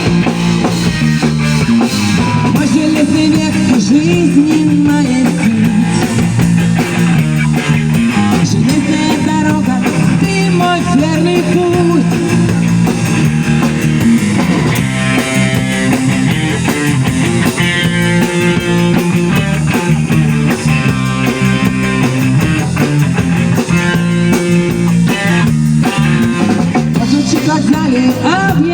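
A band playing a rock-style song, with guitar and a drum kit keeping a steady beat, and a voice singing at times.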